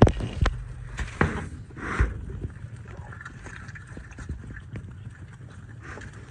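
A few sharp knocks and rattles, the loudest right at the start, as a wooden-framed wire cage door and a metal poultry waterer are handled, with chickens calling faintly.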